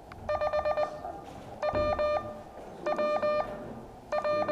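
Morse code (CW) practice tone of about 600 Hz, keyed in dots and dashes as an amateur radio call sign is sent. The characters come slowly, about one a second, with long gaps between them.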